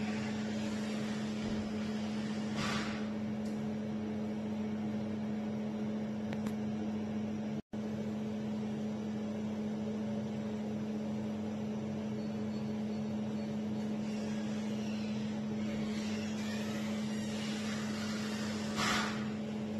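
A steady machine hum with one strong low tone, like an air conditioner or equipment fan running. It cuts out for an instant near the middle, and a short rustle comes about three seconds in and again near the end.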